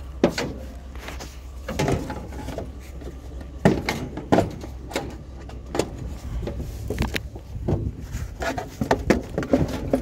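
Irregular knocks and clatters of objects being handled, over a low steady hum that stops about eight seconds in.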